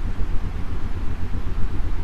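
Steady synthetic noise from a white-noise sleep track, heaviest in the deep low end like a constant rumble, with a softer hiss above it.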